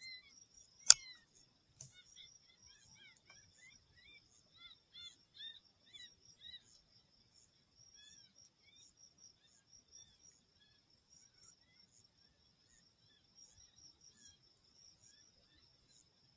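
Faint, steady outdoor chirping of small night creatures: a quick high pulsing trill with short falling chirps in clusters. A single sharp crack cuts in about a second in.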